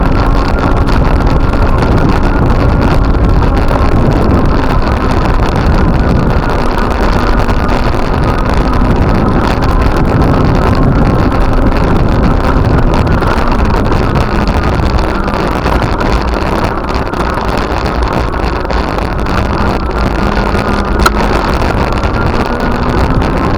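A motor engine running steadily, its pitch drifting slowly up and down, with wind buffeting the microphone throughout.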